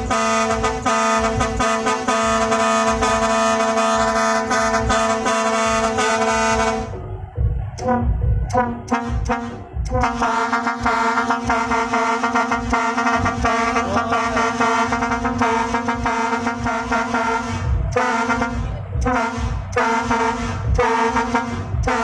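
Modified truck's air horn blaring in long steady blasts over a running engine: one of about seven seconds, then after a short break another of about eight, then only short broken blasts near the end as the horn's air supply runs out.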